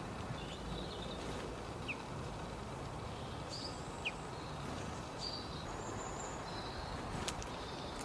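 Faint, short chirps of small garden birds, some as quick sliding notes, scattered over a steady low outdoor rumble, with a sharp click about seven seconds in.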